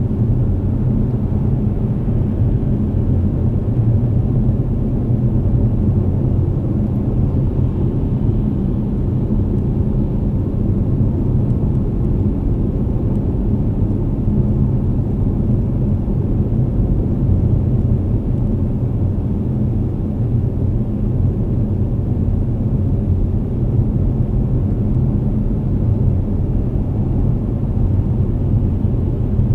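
Steady low rumble of a car cruising at highway speed, its tyre and engine noise heard from inside the cabin.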